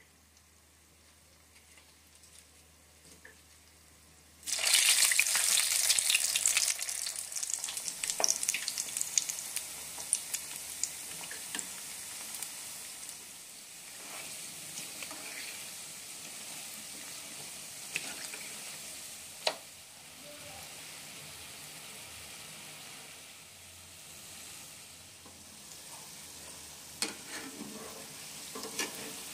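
Sesame-coated egg-and-flour dough balls deep-frying in hot oil in a wok. It is faint at first, then a loud burst of sizzling comes about four and a half seconds in and settles into a steady sizzle. A few sharp clicks sound through it.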